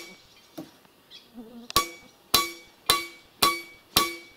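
Hammer blows on a swing's top crossbar, driving it along into place a few centimetres at a time: a steady series of sharp strikes, about two a second, starting a little under two seconds in, each leaving a short metallic ring.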